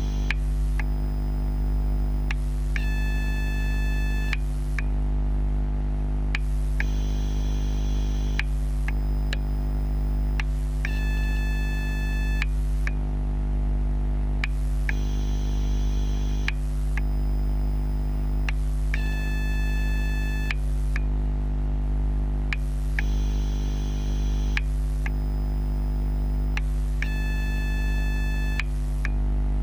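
TGX12 Ni-MH/NiCd battery charger humming and whining as it charges a row of AA cells, picked up through contact microphones. A steady low hum runs under a faint electronic tone that changes every two seconds, in a cycle of about eight seconds, with a high whine in one phase of each cycle.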